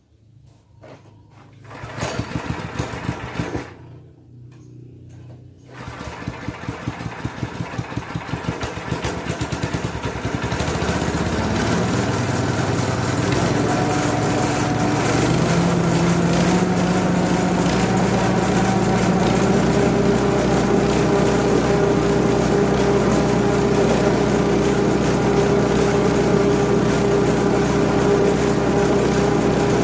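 Small 5.5 HP petrol engine driving a grass chopper starting up: a brief run about two seconds in that fades, then it catches about six seconds in with a pulsing beat. About fifteen seconds in it speeds up and holds a steady, higher pitch.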